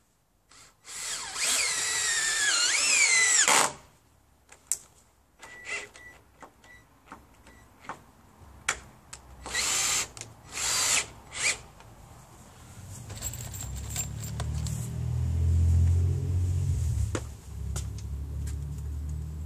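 Cordless drill running into wooden roof battens in bursts: one long whining run about a second in, its pitch wavering under load, then clicks and knocks, two short runs around the middle, and a lower rumble through the second half.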